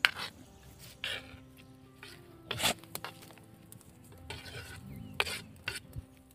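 A kitchen knife scraping chopped onion and tomato off a chopping board into a stainless steel bowl: a series of short scrapes and taps, the loudest a little before halfway through.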